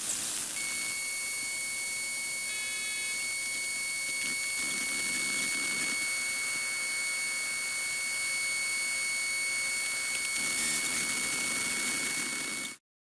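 A long, steady high-pitched electronic beep held for about twelve seconds over a constant hiss, with a brief chord of other tones about two and a half seconds in; it cuts off suddenly near the end.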